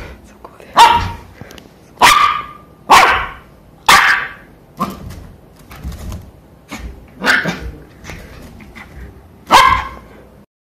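Shiba Inu puppy barking: a string of short, sharp barks, about six loud ones with quieter ones between them.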